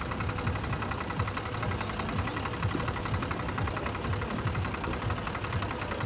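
An engine idling steadily, with a fast, even pulse.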